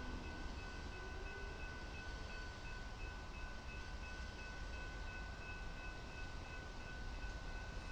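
Railroad grade-crossing warning bell ringing steadily, over a low rumble.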